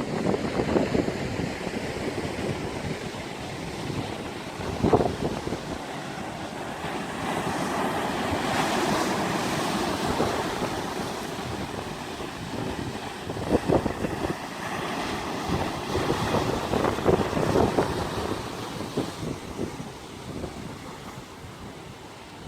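Wind blowing across the microphone, with several gusts thumping on it, over the wash of sea waves on the shore. The rushing noise swells and fades, loudest about a third of the way in.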